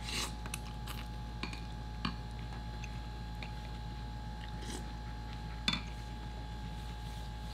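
People eating ramen noodles with forks: a slurp and chewing, and scattered clicks of metal forks against ceramic bowls, the loudest a sharp clink about five and a half seconds in.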